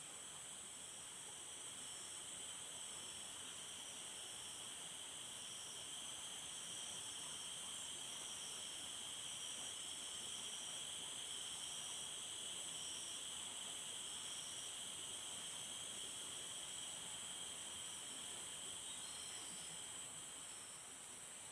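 Steady insect chorus: a continuous high-pitched drone in several bands at once, one of them faintly pulsing, swelling slightly toward the middle and easing near the end.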